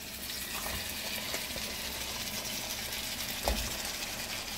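Curry paste sizzling and hissing in a frying pan as wet hassar catfish are tipped into it from a metal bowl, with a soft thump about three and a half seconds in.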